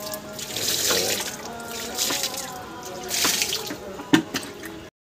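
Water poured from a plastic bucket splashing onto a soaked jute sack and concrete floor, coming in several surges. A sharp knock near the end, then the sound cuts off suddenly.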